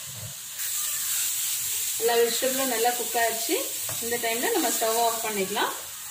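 Grated carrot, onion and tomato sizzling in oil in a frying pan as a wooden spatula stirs and scrapes it, with a loud wavering squeak from the spatula on the pan in two stretches from about two seconds in.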